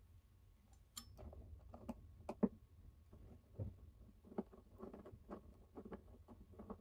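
Screwdriver blade clicking and scraping in small slotted screws on steel sewing-machine parts, in an irregular run of faint metal ticks with one sharper click about two and a half seconds in.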